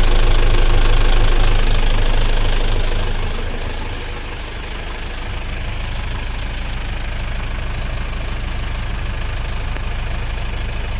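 Single Yanmar 240 hp marine diesel running. It is louder for the first few seconds, eases off about four seconds in, then settles into a steady idle.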